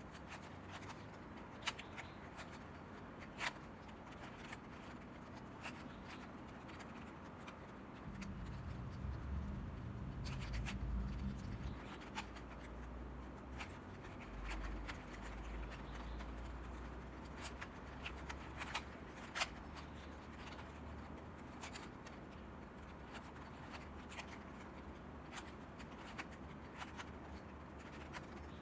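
A 3x3 puzzle cube being twisted by hand: scattered sharp plastic clicks and scraping as its layers turn. A low rumble comes in about eight seconds in and again around fifteen seconds.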